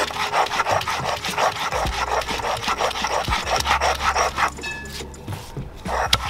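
A hand-held grinding stone pushed back and forth over a flat grinding stone, crushing wet bean leaves with potash into a paste, in quick, even rubbing strokes. The strokes stop for about a second near the end, then start again.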